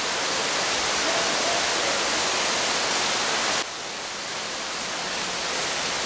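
Heavy rain pouring down on coconut palms, a steady hiss. It drops suddenly a little past halfway and builds back up.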